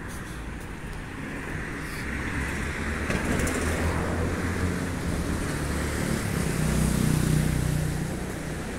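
A car passing on the street: engine and tyre noise build to a peak about seven seconds in, then fade.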